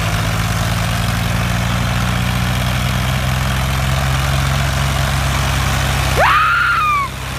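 Farmtrac 60 EPI tractor's diesel engine running steadily at low revs. About six seconds in, a high whistle-like tone rises sharply, then slides slowly down for under a second.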